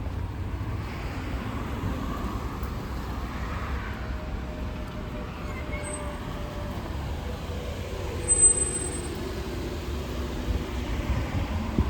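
Street traffic: motor vehicles passing with a steady low rumble, and a short high-pitched squeak about eight and a half seconds in.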